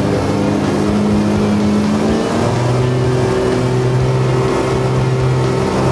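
Vac-Con dual-blower hydroexcavator running loud and steady: the truck engine drives its two positive-displacement vacuum blowers and the water system. About two seconds in, the engine note changes as the throttle is raised toward 1200 RPM.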